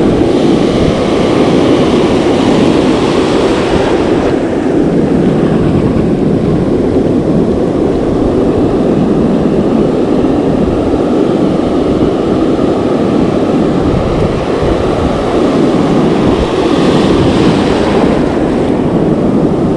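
Ocean surf breaking and washing up the beach, a steady rushing noise with wind buffeting the microphone. The hiss of a wave wash swells at the start and again near the end.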